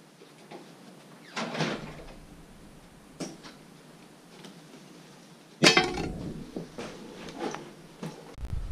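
A few scattered knocks and clunks, like a door or things being handled, the loudest about five and a half seconds in.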